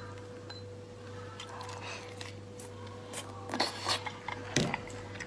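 Close-miked eating sounds from a small porcelain bowl: faint handling rustles, then a few short, sharp sips and slurps at the bowl's rim from about three and a half seconds in. A steady low hum runs underneath.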